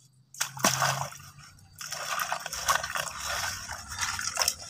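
Water splashing and sloshing in a metal basin as a batch of razor clams is washed by hand in shallow water, with short clicks among the splashes. It starts about half a second in and turns steady from about two seconds in.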